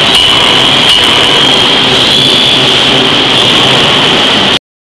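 Large forging hammer and its forge-shop machinery running: a loud, steady mechanical din with a high whine over it. It cuts off abruptly near the end.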